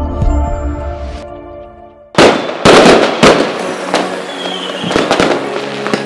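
Fireworks bursting: a run of loud bangs with crackling between them and a short whistle about four seconds in. Before that, in the first two seconds, the sustained tones of a logo jingle fade out.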